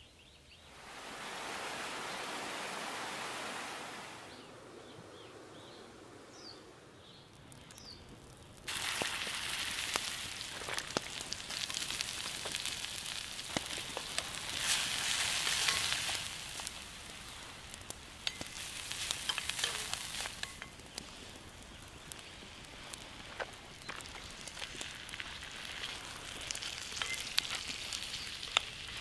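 Diced vegetables frying in hot oil in a cast-iron pot, stirred with a wooden spoon: a sizzle that starts suddenly about nine seconds in, swells and falls several times, and is scattered with crackling pops. Before that, a soft rushing hiss swells for a few seconds and fades.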